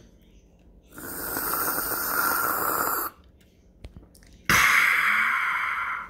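Two long slurping sips drawn through a drinking straw, the first about two seconds long, the second starting about a second and a half after it.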